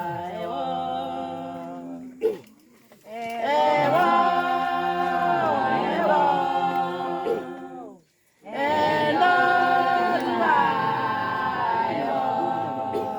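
A group of women singing a hymn a cappella in several voices, holding long notes. The singing stops briefly about two seconds in and again about eight seconds in, between phrases.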